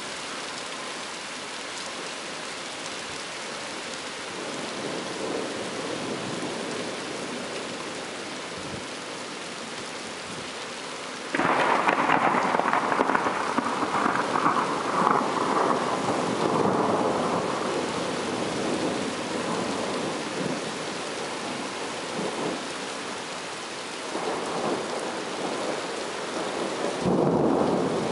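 Steady rain, then about 11 seconds in a sudden loud thunderclap that rumbles on and slowly fades over about ten seconds; the thunder swells again near the end.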